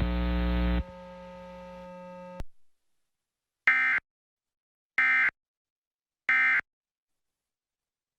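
Emergency Alert System end-of-message code: three short bursts of warbling digital data tones, evenly spaced about a second and a quarter apart, marking the end of the alert. Before them a steady buzzing hum drops in level about a second in and cuts off after about two and a half seconds.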